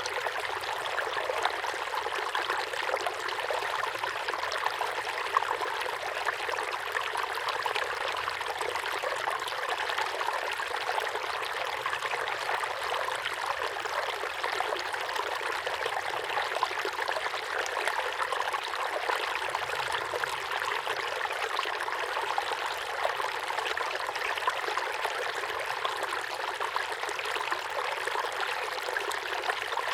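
A small waterfall pouring steadily into a pond, a continuous splashing, trickling rush with many small splashes.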